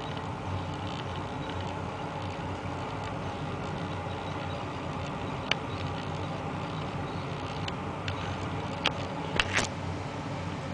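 Steady background hum and hiss, with a few short clicks and taps about halfway through and a small cluster of them near the end.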